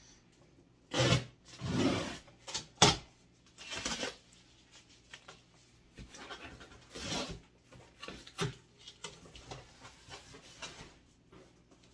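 Duct tape being peeled off a cardboard moving box and its flaps pulled open: a string of irregular tearing and scraping noises, the sharpest about three seconds in, with cardboard rustling between.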